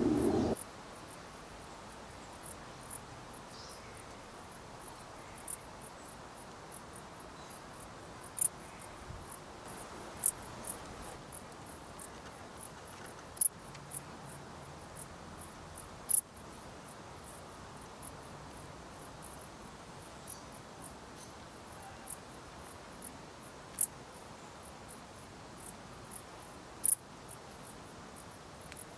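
Dark bush cricket (Pholidoptera griseoaptera) stridulating: short, high-pitched chirps at irregular intervals, roughly one or two a second. This is its courtship song, made by rubbing a ridged file against a plectrum.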